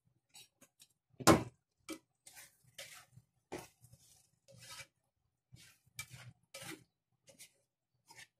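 Cookware clattering: a glass lid comes off a frying pan with one loud clank about a second in. A spatula then scrapes and taps the pan in short strokes as eggs are stirred.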